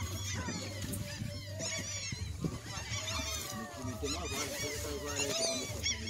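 A large flock of birds calling all at once, many short overlapping calls in a dense chorus, over a steady low hum.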